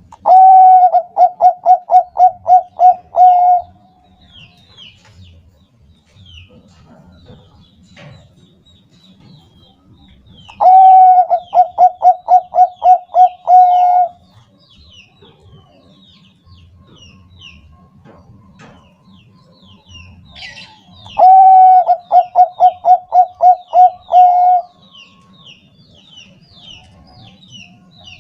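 Zebra dove (Thai-bred 'perkutut bangkok') singing: three phrases about ten seconds apart, each an opening note followed by a quick run of about ten coos. Faint chirps of small birds in between.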